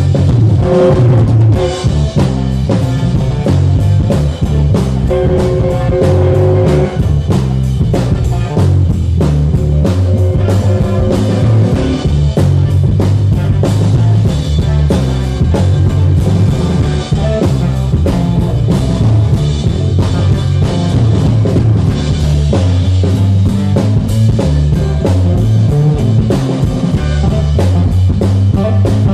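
Live blues-rock band playing loudly: drum kit keeping a steady beat under a heavy bass line and electric guitar.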